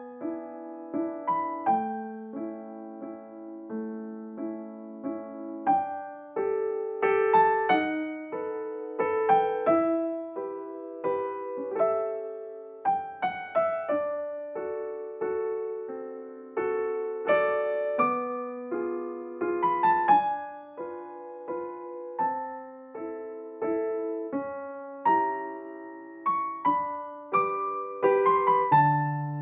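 Background piano music: single notes and chords struck one after another, each ringing and fading.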